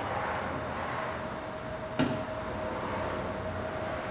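Three sharp metallic clicks, a second or two apart, from the wrench turning a long magnetic socket tool that bolts the collar to a stud hole plug body, over a steady workshop hum with a faint constant tone.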